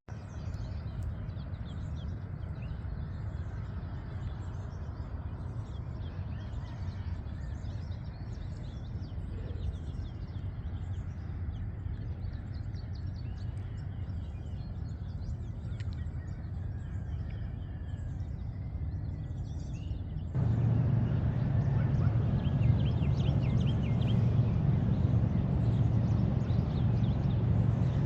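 Birds chirping over a steady low rushing noise, which gets louder about twenty seconds in.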